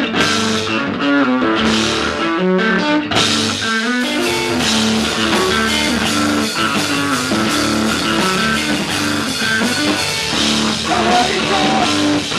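Rock band playing live: guitar chords over a drum kit, with the drums and cymbals coming in fully about three seconds in.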